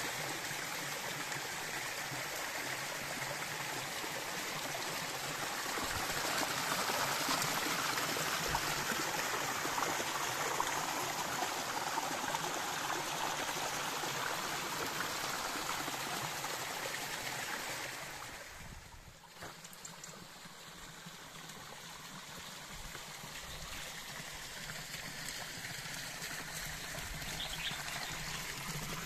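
Spring water running and trickling over mossy rocks, a steady rushing splash. It drops away for a couple of seconds about two-thirds of the way through, then builds back as water pours from a stone spout.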